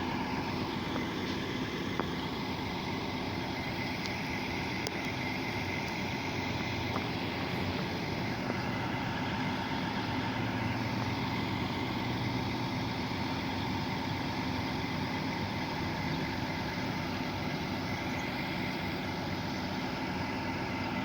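Large intercity bus's diesel engine idling steadily.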